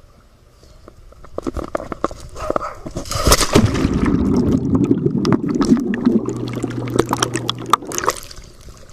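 Water splashing and gurgling with many sharp clicks, loudest from about three seconds in, with a steady low hum joining for a couple of seconds near the end.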